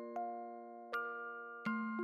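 Background music: a slow, gentle melody of struck notes that ring on and fade, about three in two seconds.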